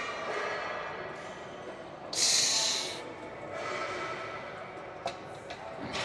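A lifter breathing hard through a heavy set: forceful, hissing exhales, the loudest about two seconds in.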